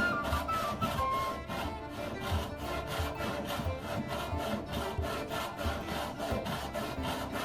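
Hand saw cutting white oak in quick, even strokes, about three a second, over background music with a flute melody that fades in the first second.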